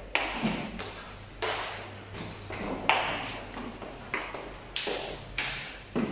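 Footsteps on a hard tiled corridor floor at a steady walking pace, about ten sharp steps, each with a short echo.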